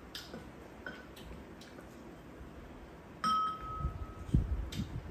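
Tableware clinking during a meal: a few faint clicks, then about three seconds in a single bright clink of a utensil on a bowl that rings for about half a second, followed by soft knocks.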